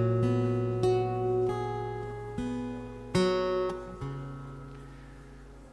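Acoustic guitar playing slow chords in a song's instrumental gap, a new chord struck about once a second and each left to ring and fade; the last one dies away toward the end.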